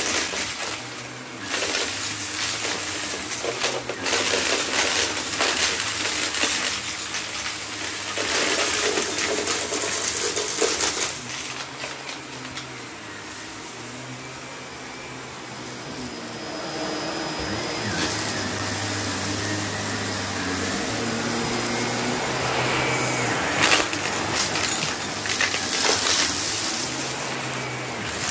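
Upright vacuum cleaner running over a thick shag rug, its motor hum shifting in pitch and level as it is pushed and pulled. Dense crunching and rattling come through as debris hidden in the pile is sucked up. It goes quieter for a few seconds around the middle.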